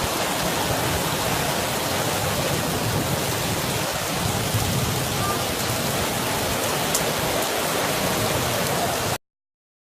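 Heavy downpour: a loud, dense, steady hiss of pouring rain and running water, cutting off suddenly about nine seconds in.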